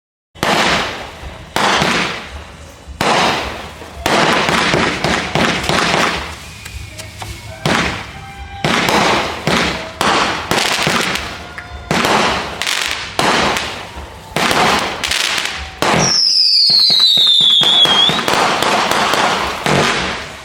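Consumer fireworks going off in a rapid series of sharp bangs, about one a second, typical of a multi-shot aerial cake such as a 49-shot. About sixteen seconds in, a loud whistle falls steadily in pitch for about two seconds.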